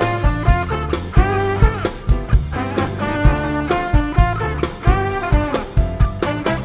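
A jazz band playing live: a drum kit keeping a steady beat under a bass line and a melodic lead with sliding notes.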